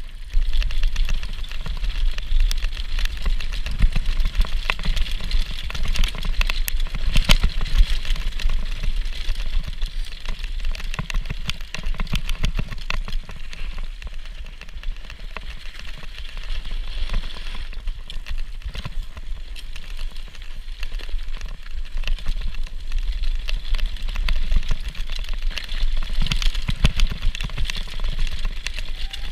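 Mountain bike clattering and rattling as it runs fast downhill over rough, snowy cobbles and stony trail: a dense run of small knocks, over a steady low rumble of wind on the action camera.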